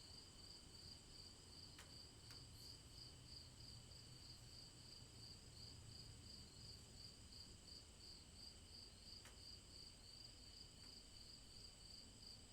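Crickets chirping in a faint, steady, high-pitched trill that pulses evenly throughout, with a few soft ticks now and then.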